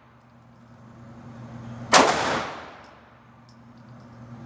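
A single pistol shot about two seconds in: a sharp crack with a short echoing tail off the concrete-block walls of an indoor range.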